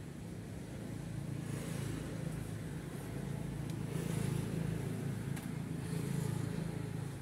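Steady low mechanical hum, like a running motor, growing a little louder in the middle, with a few faint clicks.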